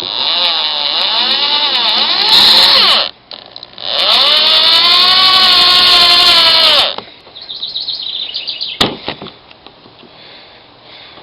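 Power drill driving bolts into a plate on a kayak's stern: two runs of the motor of about three seconds each, its pitch rising and falling as the bolts draw tight, then a few quiet rattles and a click.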